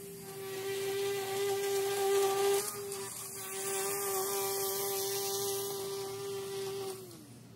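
Battery-powered string trimmer running at a steady high whine, its line cutting grass, then winding down near the end.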